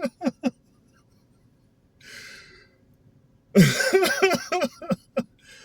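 A man's wordless vocal sounds: a few short throaty blips, a breath about two seconds in, then a loud run of short bursts from the throat, like a bout of coughing.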